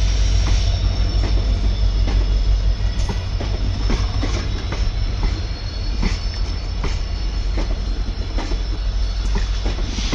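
Train running on the rails: a steady low rumble, with wheels clacking unevenly over rail joints and a thin, steady high squeal from the wheels.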